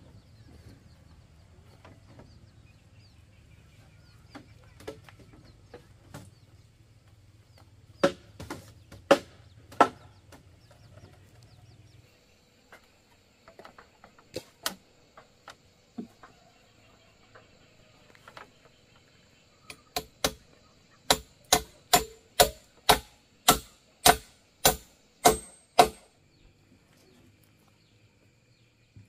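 Sharp blows of a hand tool on timber during building work: three strikes about a second apart, then a quick run of about a dozen at roughly two a second. A low steady hum sits under the first blows and cuts off partway through.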